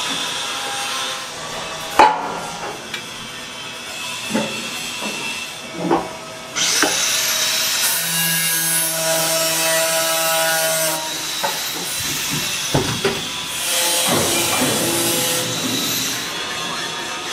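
Workshop sounds of hand assembly on stainless steel parts: a sharp metallic click about two seconds in, then a few lighter knocks of tools on metal. In the middle a steady machine hum with several tones, and near the end a rough rasping, scraping sound.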